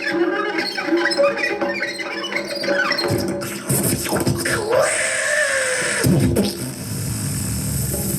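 Experimental noise music: warbling, glitchy electronic tones for about three seconds, then an abrupt switch to a harsh wash of noise with a sliding tone, settling about six seconds in into a steady noisy drone.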